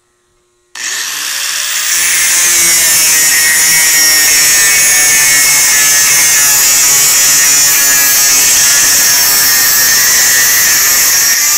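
Angle grinder with a cut-off wheel cutting through stainless steel wire-mesh grate. It switches on about a second in with a rising whine as it spins up, then runs loud and steady under cutting load.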